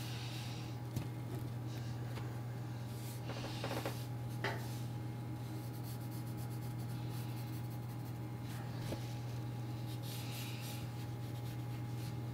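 Pencil scratching across paper in short tracing strokes, going over a sketch so that its graphite transfers onto the board beneath, with a couple of light taps, over a steady low hum.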